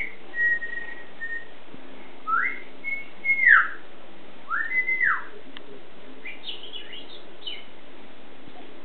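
Whistling: a held note in the first second or so, then rising and falling slides through the middle, then a few quick higher chirps.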